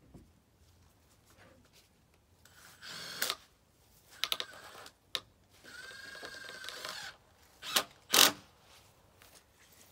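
White vinyl skirting being handled and fitted: plastic scraping and sliding against plastic twice, a few light clicks in between, and two sharp clacks near the end.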